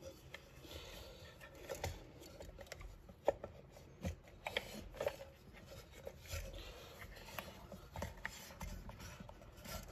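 Snowmobile recoil starter being wound by hand, its rope and pulley worked inside the metal housing to pre-wind the rewind spring: faint scattered clicks, taps and rubbing.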